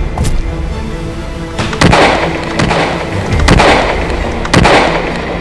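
Gunshot sound effects in a ship-to-ship battle: a faint shot just after the start, then three loud shots a second or more apart, each trailing off in a long fading rumble, over background music.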